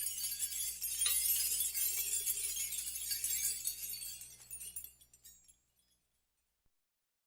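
A bright, jangling, glassy shimmer from a percussion sound effect fades away over about five seconds, then silence.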